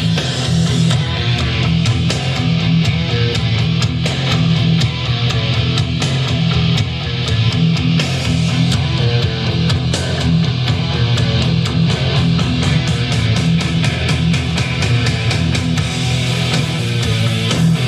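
Guitar rock music played back from a cassette on a Sony WM-EX1 Walkman through a small portable speaker, loud and continuous with a steady beat.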